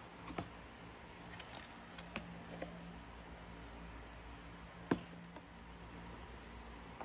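Hands handling a cardboard album box and lifting off its cover: a few light taps and clicks, with one sharper knock about five seconds in, over a faint steady hum.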